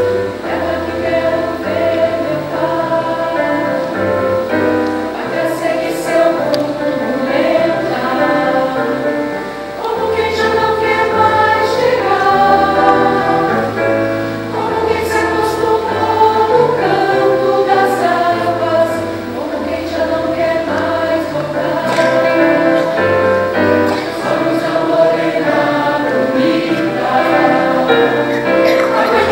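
Mixed choir of women's and men's voices singing together in harmony.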